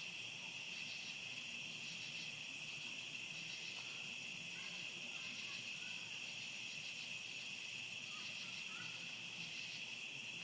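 Outdoor insect chorus: a steady high trill, with a higher, shriller buzz that comes in phrases of about a second and a half separated by short breaks.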